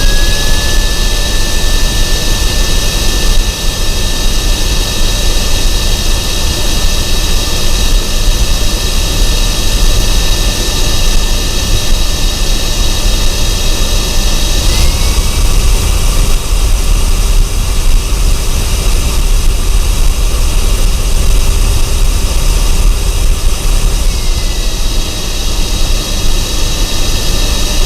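Vacuum cleaner running at full speed: a loud, steady motor whine over rushing air. About halfway through the whine steps up in pitch, and near the end it slides back down.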